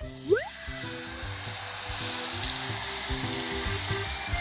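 Soy-and-chili seasoning sauce sizzling as it is poured into a hot oiled pan over pan-fried tofu. The sizzle starts suddenly as the sauce hits the pan and then holds steady.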